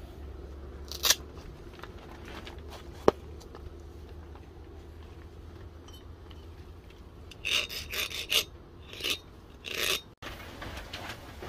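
A hardness-test file scraped across the edge of a freshly quenched bearing-steel knife blade to check its hardness. There is one short rasping stroke about a second in, a sharp click, then a quick run of several strokes in the second half.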